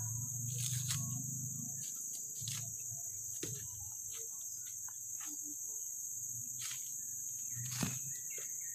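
Steady high-pitched insect chorus, with a few irregular sharp knocks and rustles from a blade cutting a young bamboo shoot at the base of the clump.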